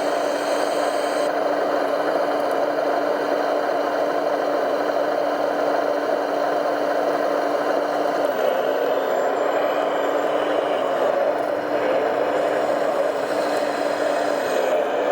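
Motor and drivetrain of a large radio-controlled truck running steadily, a continuous mechanical whine with small rises and dips in pitch.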